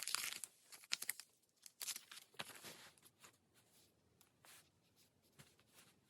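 Soft rustling and crinkling of paper and sticker sheets being handled, a few short scattered crinkles in the first three seconds, then only faint occasional ticks.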